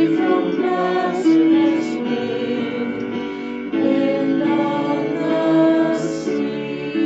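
A slow hymn sung with long held notes over musical accompaniment.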